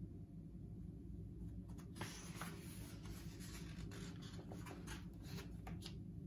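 Page of a hardcover picture book being turned: soft paper rustling and sliding that starts about two seconds in, with a few light taps, over a faint low hum.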